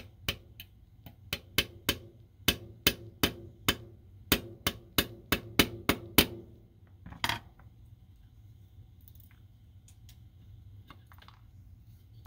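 A small watchmaker's hammer with a white plastic face taps repeatedly on a bracelet pin held in a collar gripped by vise-grip pliers, driving the pin out of the collar. There are about twenty sharp taps at roughly three a second for six seconds, one more a second later, then only faint handling.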